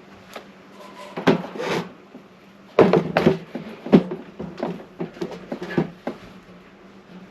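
Scattered clicks, knocks and scrapes of a filler spreader working Bondo body filler into dents on a metal Honda Magna motorcycle gas tank, in a short burst and then a longer run of strokes, over a steady low hum.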